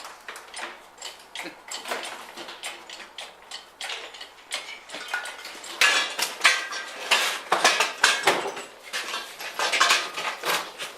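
Irregular metallic clanking and rattling as a Ford 302 V8 engine is jacked up and lifted on a hoist, growing louder and busier about halfway through.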